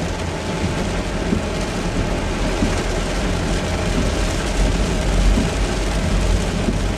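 Heavy rain pelting a moving car's roof and windshield, heard from inside the cabin as a steady dense hiss over tyre and engine noise.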